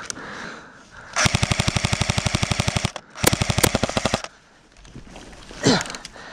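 Electric airsoft gun firing two full-auto bursts of rapid, evenly spaced shots, the first about two seconds long and the second about a second long. A brief falling sound follows near the end.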